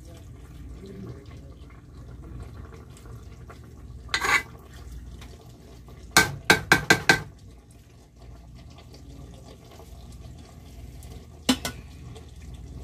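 Metal spoon stirring potatoes and cauliflower in an aluminium cooking pot, with a short scrape about four seconds in. Then come five quick knocks of the spoon against the pot a little after six seconds, and one more knock near the end, over a steady low hum.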